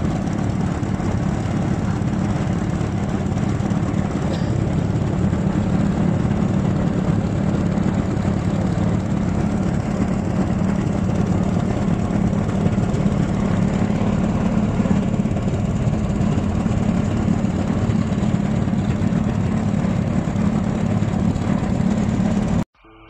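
Small outboard motor on a wooden boat running steadily under way, a constant low drone, until it cuts off abruptly near the end.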